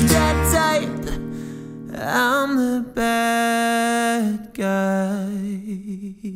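Unplugged acoustic band music: acoustic guitars picking quick notes over an upright double bass. The bass drops out after about half a second, then two long held notes follow, the second wavering in pitch.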